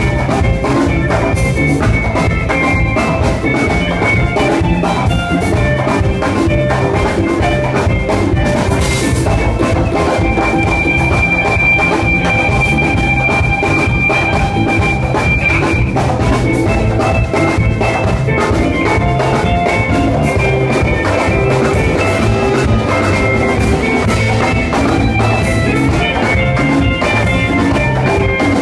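Live afro band playing a steady dance groove on drum kit, congas, electric guitar and bass guitar, loud throughout. A high note is held for several seconds from about ten seconds in.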